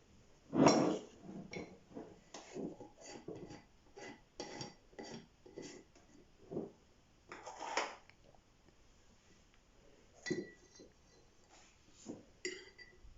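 A spoon clinking and knocking against a bowl as cocoa is spooned in: a string of short, irregular taps, the loudest about a second in, some with a brief ringing tone.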